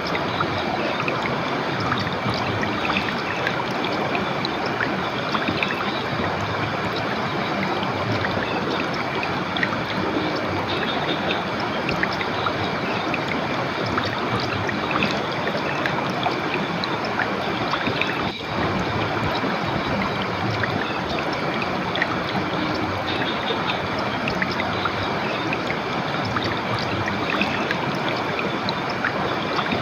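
Clear river water rushing steadily over rocks, an even, unbroken flow, with a momentary dip in level about two-thirds of the way through.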